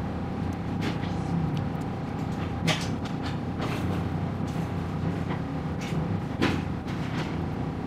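Restaurant room tone: a steady low hum with a few light clicks and knocks of tableware scattered through it.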